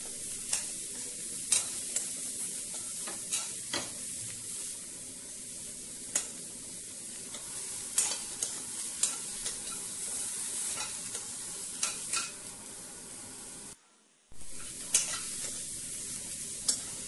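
Cauliflower florets sizzling in oil and butter in a kadhai, a steel spoon stirring them with sharp clicks and scrapes against the pan at irregular moments. The sound breaks off for about half a second a little past the middle.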